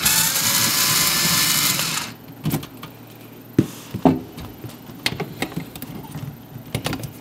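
A power driver with an 8mm socket runs for about two seconds, loosening the screw of the drain hose clamp. A few clicks and knocks follow as the hose is handled.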